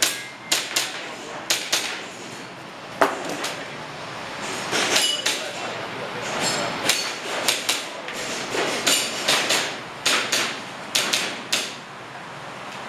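Airsoft pistol shots: sharp cracks that come in irregular groups, a few early on and a quicker string of them later.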